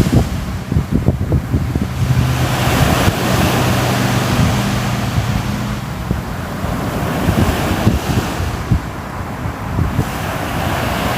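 Sea surf washing in and breaking, swelling and easing every few seconds, with wind.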